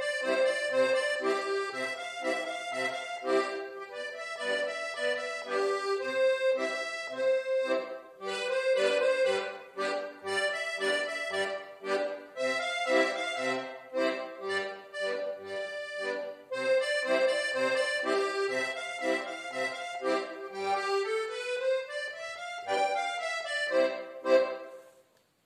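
Piano accordion played solo: a treble melody and chords over short, regularly repeating bass notes from the left hand. About three-quarters through, a rising run of notes leads to a loud final accent, and the playing stops just before the end.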